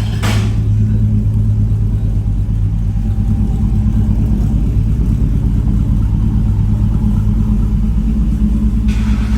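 Stock 5.3-litre V8 pickup running steadily through a new true dual exhaust with Borla XR1 mufflers and an X-pipe: a deep, even exhaust note.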